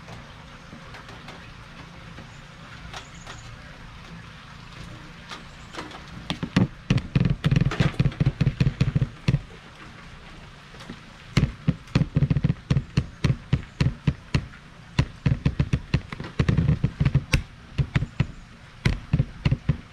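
A steady low hum with two long runs of rapid, irregular sharp knocks and taps, much louder than the hum, starting about six seconds in and again about eleven seconds in.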